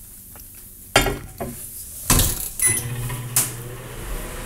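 A few clunks as a bowl goes into a microwave oven and its door shuts, then the microwave starts and runs with a steady low hum, heating the water further.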